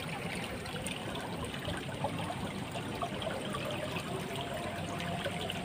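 Water of a small, shallow ditch stream flowing and trickling steadily.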